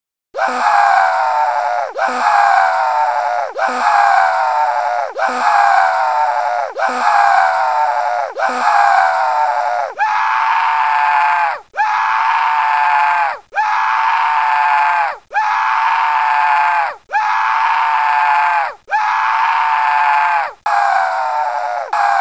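Cartoon scream sound effect looped: about a dozen short screams back to back, starting about half a second in. The first several slide down in pitch; the later ones jump up and then hold steady.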